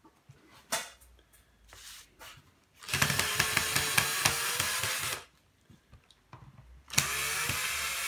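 Cordless drill-driver backing out Phillips screws from a vacuum cleaner's carpet head. It makes two runs of the motor with a fast clicking: a longer one of about two seconds a few seconds in, and a short one near the end.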